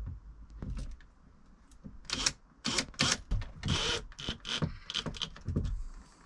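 A quick run of sharp clicks, knocks and short rattles, sparse at first and coming thick and fast from about two seconds in, like hard parts and hardware being handled.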